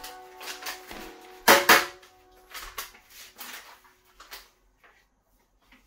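Black pepper shaker being shaken and tapped over a bowl of raw meat: a run of short, sharp rattles, the loudest a quick pair about a second and a half in.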